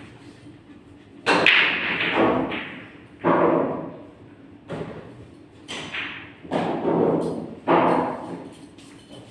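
A run of about half a dozen sudden loud thuds over several seconds, each ringing out briefly before the next.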